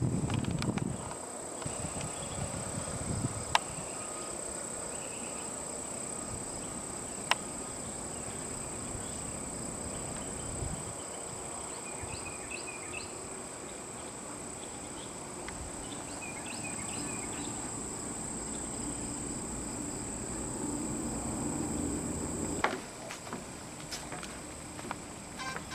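A steady, high-pitched insect chorus, with two sharp clicks in the first third; the chorus cuts off suddenly near the end.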